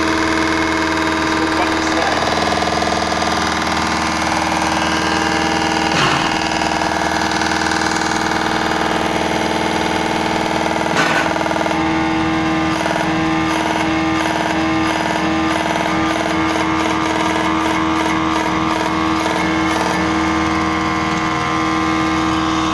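Diesel injection pump test bench running steadily, its drive turning the injection pump with a loud, even hum of many tones. This is a fuel-delivery test, with diesel from the injectors filling the graduated measuring cylinders. From about halfway through, a fast flickering rhythm rides over the hum.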